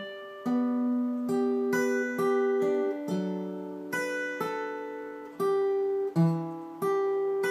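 Acoustic guitar picked note by note, each note ringing on, about a dozen plucks in an arpeggiated figure over a C chord moving to G over B.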